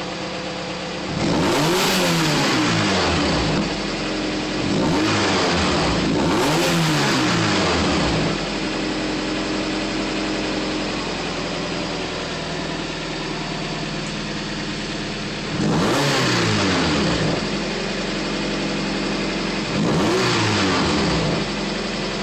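Car engine running cold at idle and revved several times, each blip of the throttle a quick rise and fall in pitch, with a longer stretch of steady idle in the middle.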